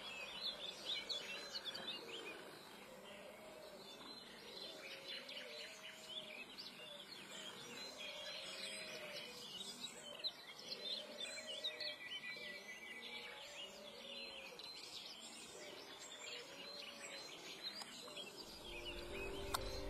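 Faint dawn birdsong: many high chirps and trills, with a lower call repeating about every second and a half.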